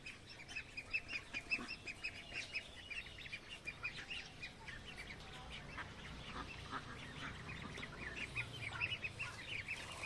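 A flock of two-month-old magpie and Indian Runner ducklings peeping, with many short high calls overlapping throughout.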